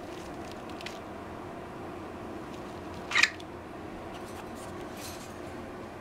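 A pet parrot gives one short, sharp chirp about three seconds in, over a steady faint room hum, with a few faint clicks near the start.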